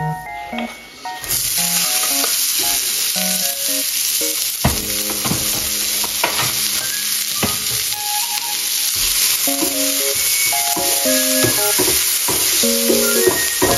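Chopped onion and tomato frying in hot oil in a pan, sizzling loudly from about a second in, while a wooden spatula stirs them with a few knocks against the pan.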